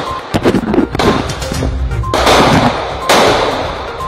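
Several sharp, gunshot-like bangs of simulated gunfire, each trailing off in a long echo, the loudest about two and three seconds in. Background music plays underneath.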